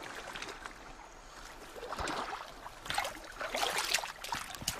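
Water splashing and lapping as a platypus swims and paddles at the surface. It gets louder about two seconds in, with stronger splashes from about three seconds.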